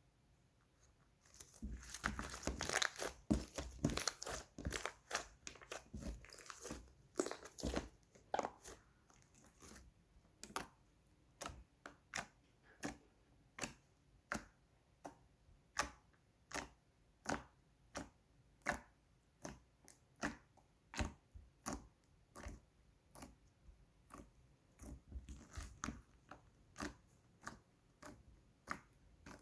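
White slime being worked by hand: dense crackling for the first several seconds, then regular sticky pops, a little more than one a second.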